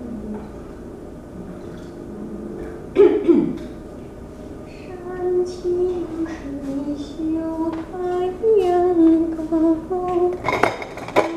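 Someone humming a slow, wordless tune in long held notes that slide between pitches. It is broken by a short clatter about three seconds in and a louder clatter near the end.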